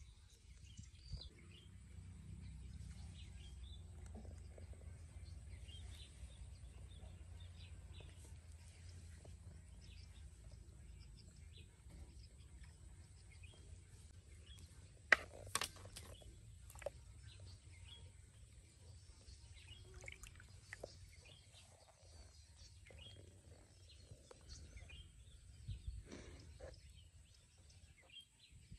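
Quiet pond-side ambience: a steady low rumble with scattered faint bird chirps, and a few sharp clicks, the loudest about halfway through.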